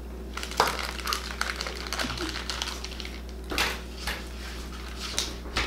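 Hard plastic pencil-shaped blind boxes clicking and knocking against each other as one is picked out of a cardboard display case, with paper rustling. There is a scatter of separate sharp clicks rather than a steady rhythm.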